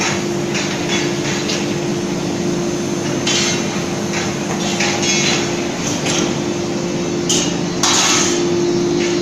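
Leaf-spring production machinery running with a steady hum, with several sharp metallic clanks from the presses and hot steel being worked. The loudest clank comes about a second before the end.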